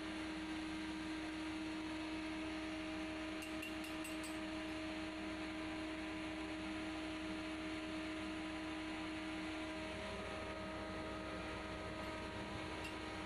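Steady machinery hum with several held tones, the strongest of which stops about ten seconds in; a few faint ticks about four seconds in.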